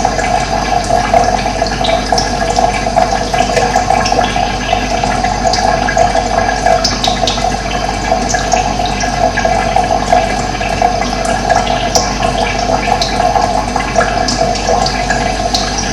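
Running water flowing steadily, a continuous rushing sound with no pauses.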